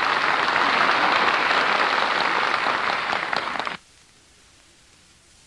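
Radio studio audience applauding, a dense clapping that cuts off suddenly about four seconds in.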